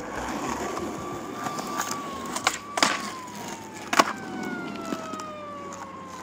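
Skateboard wheels rolling over rough asphalt, with a few sharp clacks of the board, the loudest about a second apart in the middle, as the skater hits the curb. Through the second half a steady thin tone slowly falls in pitch.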